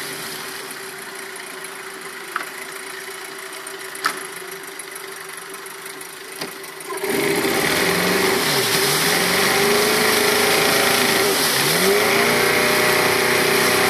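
1997 Mercury Sea Pro 9.9 hp two-stroke outboard running in a water test tank with a steady engine note. About seven seconds in it gets suddenly much louder and noisier, and it stays that way.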